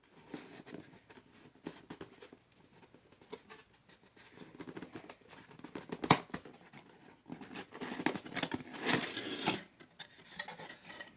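A cardboard gift box being opened and its contents handled: scattered scratching and tapping, a sharp click about six seconds in, and a longer stretch of rustling near the end.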